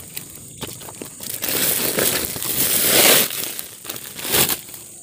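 Close rustling and crumpling handling noise, building to its loudest about three seconds in, with a second short rustle near the end.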